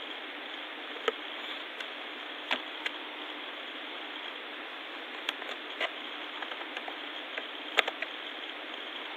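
Scattered sharp clicks of a computer keyboard and mouse as a spreadsheet formula is typed and a cell range selected, the loudest click near the end, over a steady microphone hiss.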